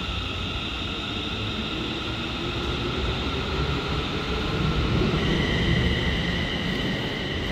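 Class 380 electric multiple unit pulling out of the station. Its traction motors whine in steady high tones that step to a different pitch about five seconds in, over a low rumble that grows louder toward the middle.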